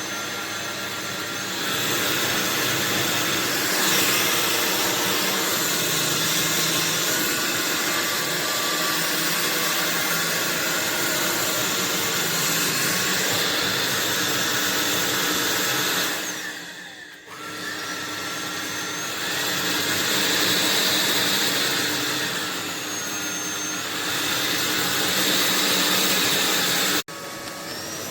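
AlloyMove A05 cordless stick vacuum running, a steady motor rush with a high whine. About two-thirds of the way through, it dips sharply and spins back up with a rising whine, and near the end it cuts off abruptly to a quieter sound.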